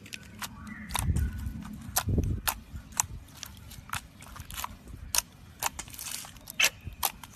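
Slime being handled, giving irregular sticky clicks and pops, with a couple of soft low thuds about one and two seconds in.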